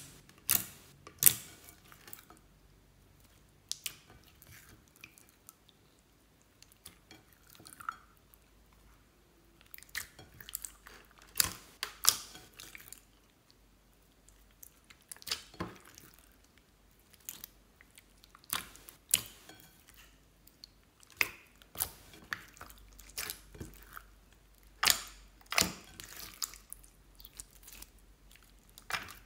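Clear slime being kneaded and stretched by hand, giving irregular sticky pops and clicks with short quiet gaps between them.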